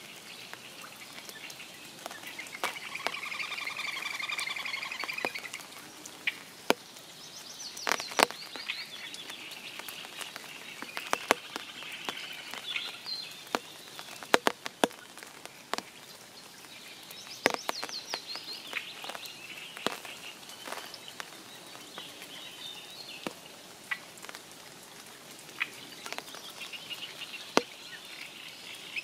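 Spring rain falling in a forest, heavy drops ticking and pattering irregularly over a steady hiss. Songbirds sing through it, with trilled phrases about three seconds in, around eight seconds, midway, and again near the end.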